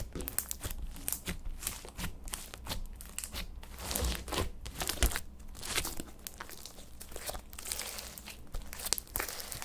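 Slime being kneaded and mixed by hand, with a dense run of irregular crackling and popping as air pockets burst.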